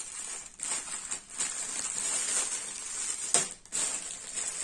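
Clear plastic packaging bag crinkling and rustling as it is handled and opened by hand, with a sharper crackle a little over three seconds in.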